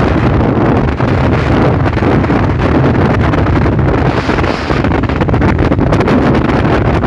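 Speedboat engine running steadily at speed, loud, with wind buffeting the microphone.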